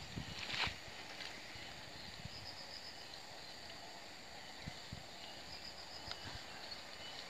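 Black-silver plastic mulch film crinkling as it is pulled taut and pinned at the edge, with a brief crinkle about half a second in and a few soft knocks, over a faint steady high chirring.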